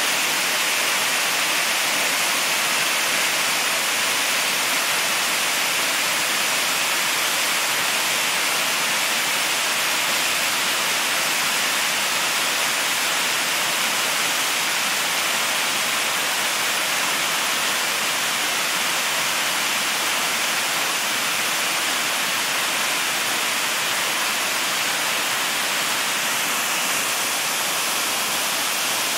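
Waterfall, heard up close: a steady, loud rush of water plunging onto rocks and splashing down the stream below.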